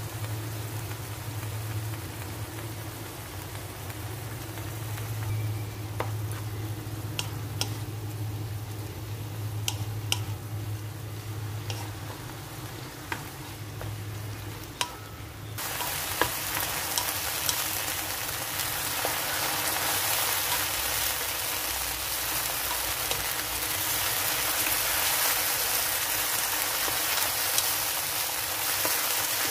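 French beans and minced garlic sizzling in a non-stick pan while a spatula stirs and tosses them, with scattered light taps of the spatula on the pan. About halfway through the sizzling suddenly becomes much louder and stays loud.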